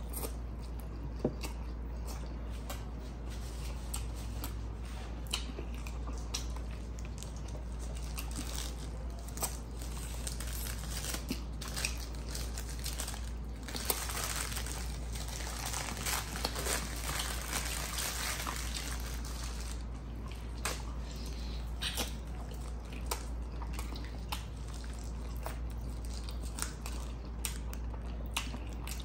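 A person eating chicken with bare hands, close to the microphone: biting, crunching and wet chewing, with sharp crunches scattered throughout and a denser run of crunching about halfway through. A low steady hum lies underneath.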